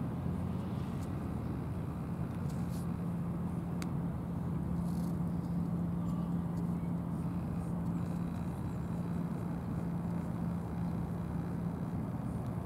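Steady low background rumble with a constant low hum running under it, with no distinct events.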